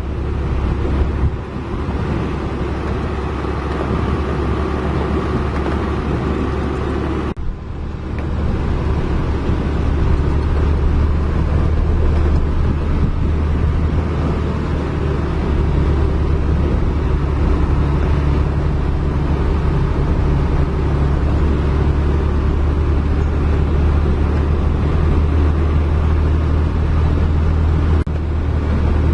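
Heavy diesel engine running steadily with a deep, even rumble. The sound drops out for an instant about seven seconds in, then carries on a little louder.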